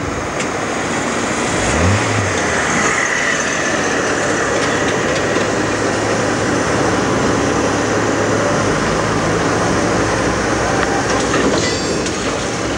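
Four-wheel tram running along street track, heard from on board: steady wheel-on-rail noise and motor hum, with a short rising hum about two seconds in.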